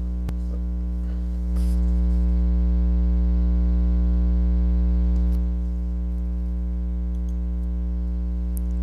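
Steady electrical mains hum, a low buzz with many overtones, which grows louder about one and a half seconds in and drops back about five and a half seconds in.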